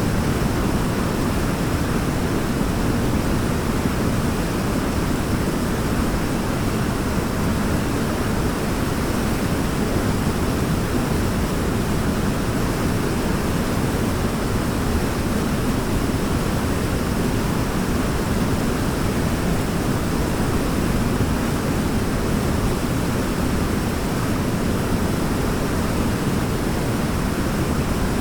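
Waterfall: a steady, even rush of falling water, heavy in the low end, with no change in level.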